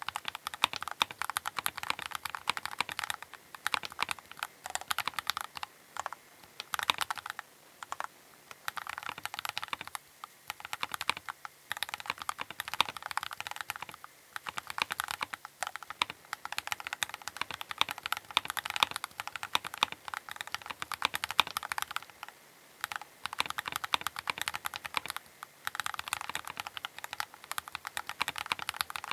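Typing on a Keychron K8 Pro mechanical keyboard: fast runs of key clicks and clacks broken by brief pauses every few seconds.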